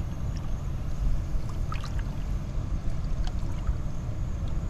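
Small splashes and drips of water as a large snook is held and moved back and forth in the shallows to revive it, heard as scattered ticks a couple of times, over a steady low rumble.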